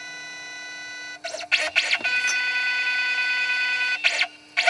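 Stepper motors of a home-built CNC router whining as the gantry makes a series of moves, the pitch sweeping up at the start of each move and then holding steady, over a steady low hum. This is the machine travelling to the tool-length probe button to measure the bit.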